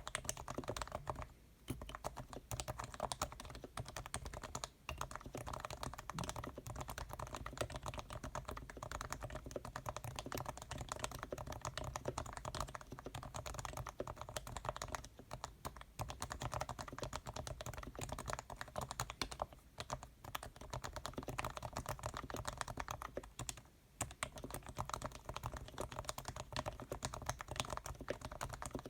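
Leopold FC660C keyboard being typed on continuously and fast: its capacitive (Topre-type) switches give soft, muffled keystrokes. The sliders and springs are lubed and the case holds dampening foam, with short pauses here and there.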